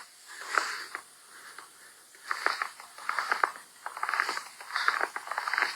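Footsteps crunching through snow lying over ice, a crunchy step about once a second, quieter for the first couple of seconds.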